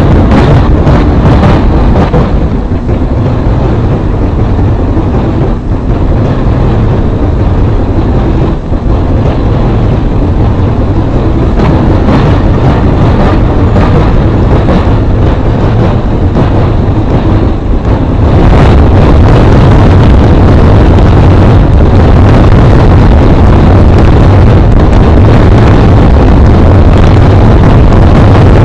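Heavily distorted, clipped audio from a 'G Major' effects edit of a TV-channel logo sound: a continuous, very loud wall of harsh noise, heaviest in the bass, with no clear melody or voice. It gets louder and brighter about two thirds of the way through.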